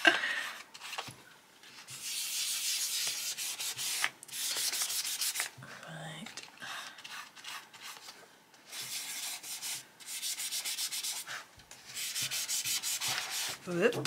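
Cotton pad rubbing soft pastel into a paper colouring page in rapid back-and-forth strokes. The rubbing comes in about four bursts of a second or two each, with short pauses between.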